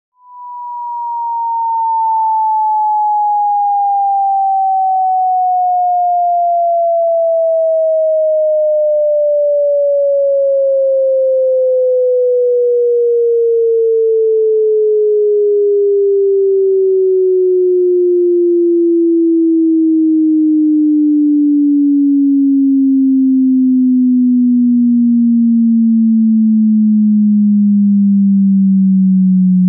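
Pure sine-wave test tone sweeping steadily down in pitch from 1000 Hz to just under 200 Hz, fading in over about two seconds: the top of a 1000 Hz to 1 Hz sweep for checking how low a speaker, subwoofer or headphones can reproduce bass and whether they distort or resonate.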